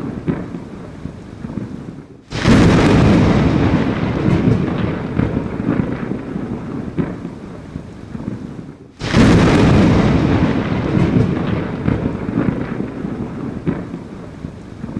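Heavy rain with rumbling thunder. The sound drops out for a moment and comes back loud about two seconds in and again about nine seconds in, each time fading gradually, like a looped thunderstorm track.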